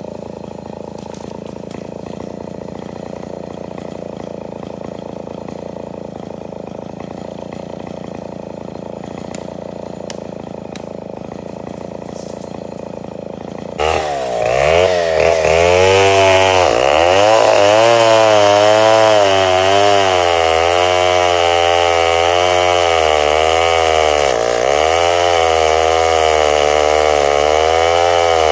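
Two-stroke chainsaw running at a steady low speed, then about halfway through suddenly opening up to full, loud revs. Its pitch wavers up and down as it cuts into wood.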